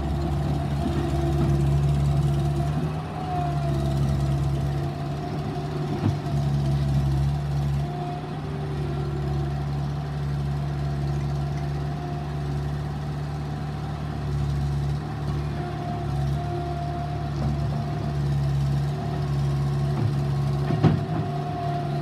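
Bobcat T190 compact track loader's diesel engine running under changing load, its pitch and level shifting as the machine drives and pushes its bucket into a gravel pile. A sharp clank about six seconds in and a louder one near the end.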